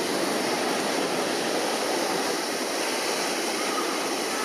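Steady wash of surf mixed with the murmur of a large crowd, with no single event standing out.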